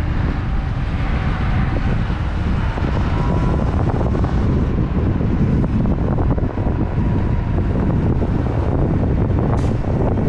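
Wind buffeting a helmet-mounted camera microphone while riding a Sur Ron Light Bee X electric dirt bike: a steady, low rumbling rush with no engine note.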